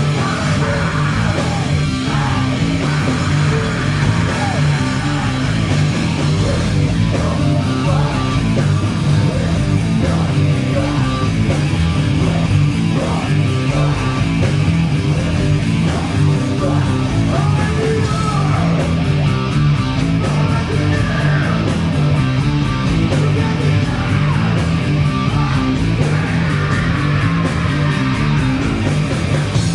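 Loud rock music with electric guitar and a steady bass line.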